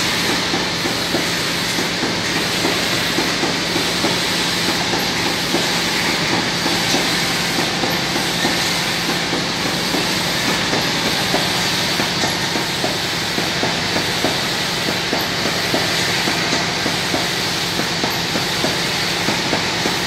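Automatic spray-bottle filling and capping machine running: a steady mechanical clatter of bottles and conveyor over a constant motor hum, with a regular machine cycle repeating about every second and a half.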